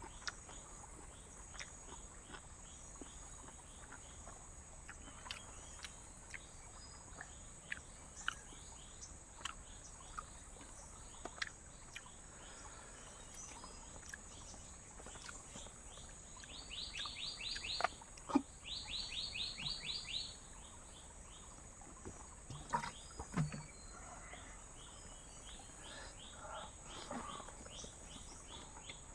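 Jungle ambience: a steady high insect drone with rapid repeated chirping trills. Midway a louder, fast-pulsing animal call runs for a few seconds. Scattered soft clicks and knocks sound through it.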